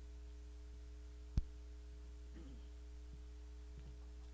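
Steady low electrical hum, with a single sharp click about a second and a half in.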